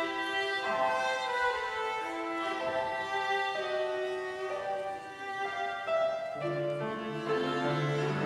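Violin playing a slow melody of long held notes with accompaniment. A lower part comes in with sustained low notes about six and a half seconds in.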